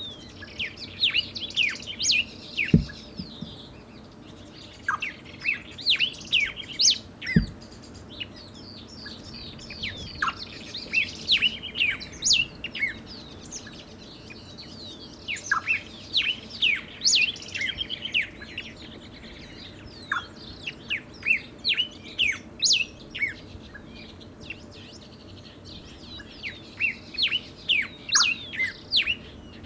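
Yellow cardinal singing: phrases of quick chirped and gliding whistled notes, repeated every few seconds. Two brief low thumps come in the first eight seconds.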